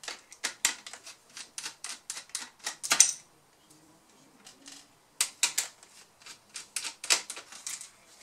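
Small screwdriver clicking and scraping against screws and the plastic chassis of an opened ASUS K555L laptop base: a run of irregular sharp clicks ending in a louder click about three seconds in, a pause of about two seconds, then more clicks.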